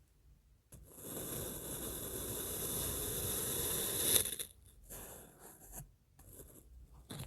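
Kinetic sand being worked: a steady gritty scraping for about three seconds that ends in a short louder crunch, then a few brief scrapes.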